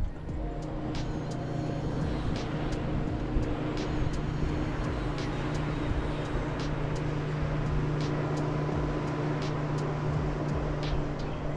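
Boat's Mercury outboard motor running at a steady speed with the boat under way: an even engine hum over a rush of wind and water, building up in the first second and then holding steady.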